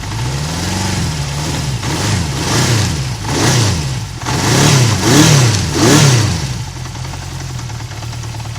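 Honda CB350F's four-cylinder engine revved in a series of quick throttle blips, each rising and falling in pitch. The blips are loudest a little past the middle, and the engine settles back to a steady idle near the end.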